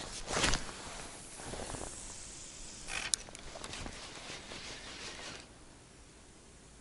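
A cast with a spinning rod: a short swish about half a second in, then a rustling hiss of line running off the reel, with a sharp click about three seconds in. The hiss stops suddenly about five seconds in, leaving only a faint background.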